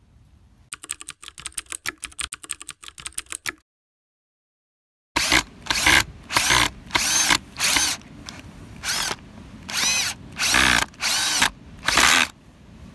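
A power drill-driver driving wood screws into pine boards: first a run of rapid, evenly spaced clicks for about three seconds, then, after a short break, about a dozen short bursts of the motor, each rising and falling in pitch as the trigger is squeezed and released.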